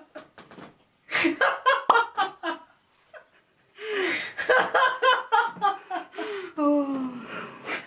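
A woman laughing in rapid bursts, in two bouts with a short pause between them; the second trails off into a long falling note near the end.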